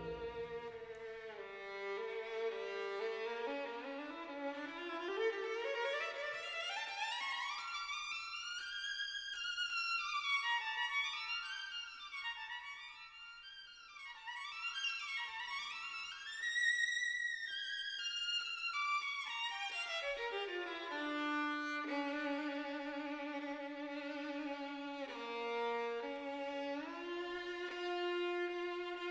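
A slow bowed-string melody of long held notes with vibrato. It glides up to high notes in the middle and settles back into steady low held notes near the end.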